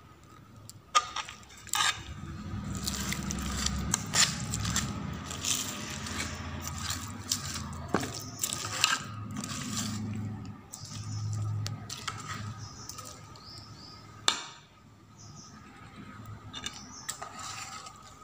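Steel spoon mixing a thick, oily chilli-coated bitter-gourd pickle in a metal pot: wet squelching with irregular clinks and scrapes of the spoon against the pot, the sharpest a few times through.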